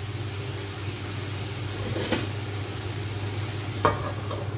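A glass pot lid set down on a steel wok, a sharp clink just under four seconds in, with a softer knock about two seconds in, over a steady low hum.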